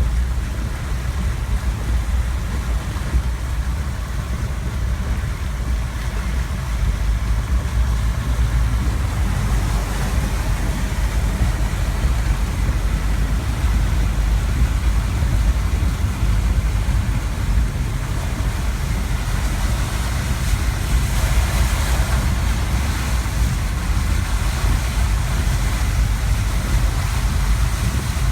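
Steady low rumble of a vehicle with a rushing hiss of water on top, as on a typhoon-flooded road. The hiss swells briefly about three quarters of the way through.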